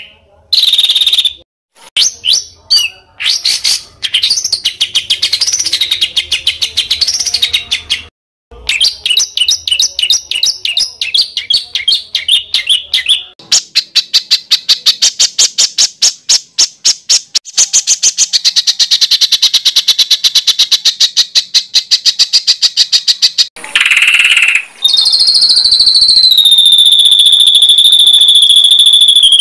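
Recorded songbird song spliced together with abrupt cuts: varied high chattering phrases, then a long run of fast repeated sharp notes, and near the end one long held high whistle.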